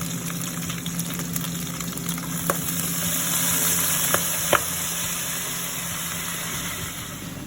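Chicken feet frying in hot oil in a pan, a steady sizzle that swells from about three seconds in, with a few sharp clicks of a utensil against the pan.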